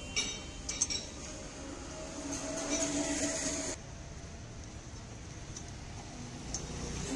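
Two sharp metallic clinks of metal parts being handled, then a steady hum for about a second and a half that cuts off suddenly.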